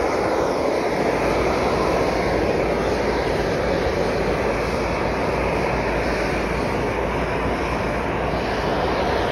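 Hot spring boiling and splashing at its centre: a steady rushing noise.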